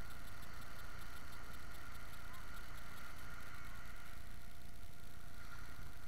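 Ocean surf washing up the beach mixed with wind rumbling on the microphone, a steady unbroken noise.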